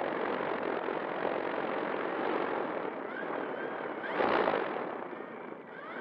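Brushless electric motor and propeller of an RC Air Tractor running on the ground, heard mostly as a rushing prop wash buffeting a microphone just behind the propeller. The rush swells louder about four seconds in, then eases off.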